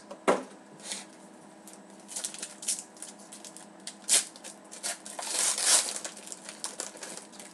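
Foil-wrapped hockey card packs crinkling and rustling as they are handled, with scattered sharp clicks. A longer, louder crinkle comes about five and a half seconds in.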